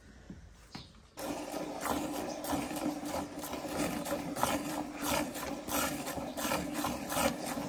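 A cow being milked by hand into a steel bowl of milk: about a second in, a steady run of squirts starts, about three a second, each hissing into the froth.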